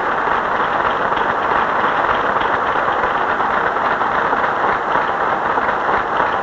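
Audience applauding steadily, a dense crackle of many hands clapping at once.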